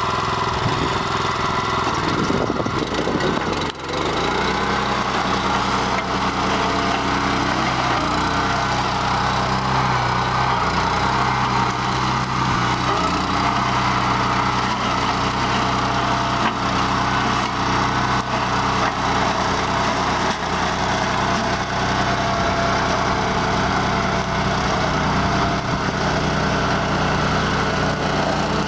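The 13-horsepower Honda gas engine of a BCS 749 walk-behind tractor running at full throttle, driving a Berta 26-inch flail mower's spinning blade drum as it mows through old cornstalks and cowpea vines. The sound is steady, with a short dip about four seconds in and the engine note wavering slightly as it takes load.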